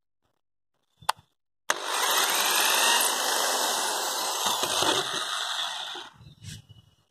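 Electric drill motor running steadily for about four seconds, after a short click about a second in. A few soft knocks follow as it stops near the end.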